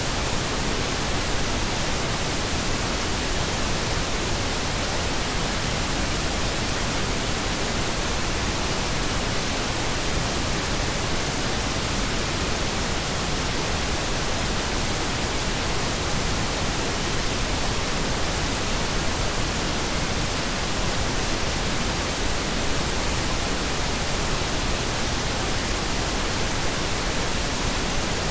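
Synthetic pink noise: a steady, even hiss spread across all pitches with no tones, clicks or changes, fuller in the low end than white noise.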